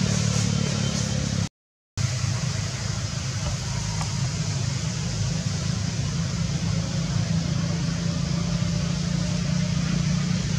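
Steady low engine hum with an even hiss above it. The sound drops out to silence for about half a second near two seconds in, then carries on unchanged.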